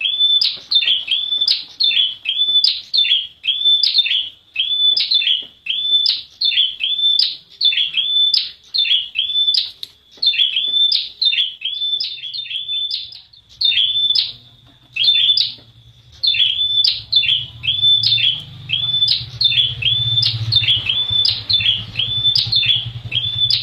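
Prenjak wulung (a prinia) calling in a fast, steady series of sharp, high chips, about two a second, with one brief pause about two-thirds of the way through. A low rumble sits under the calls in the second half.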